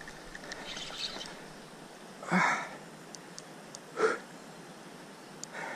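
A man huffing out two short, forceful breaths, about a second and a half apart, straining on a heavily bent rod while fighting a big catfish.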